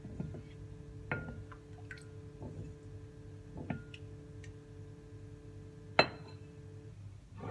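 Light clicks and taps of a cooking utensil against a nonstick frying pan, scattered and irregular, the loudest about six seconds in, over a steady hum that stops near the end.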